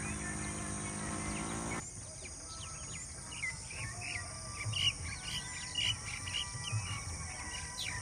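Birds chirping in many quick, short calls over a steady high-pitched insect drone. In the first two seconds a low, steady hum with overtones sounds underneath, then cuts off abruptly.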